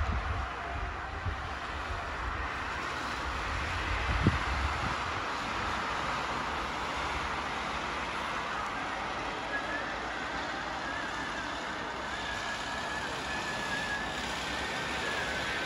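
Road traffic, cars passing, heard over wind buffeting the microphone during the first few seconds, with one sharp bump about four seconds in.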